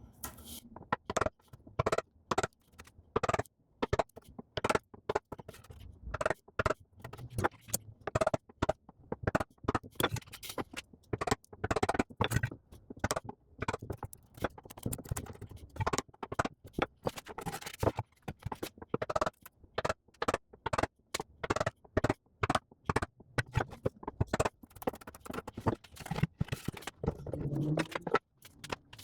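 Hand woodworking tools working on wood: a steady string of short, irregular scrapes and taps.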